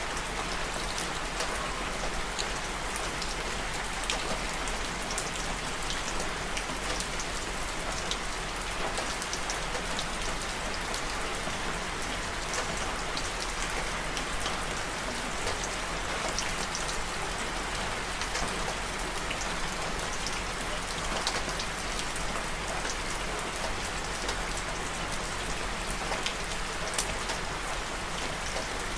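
Steady rain falling on a surface, an even hiss dotted with the ticks of single drops hitting, with a steady low hum beneath.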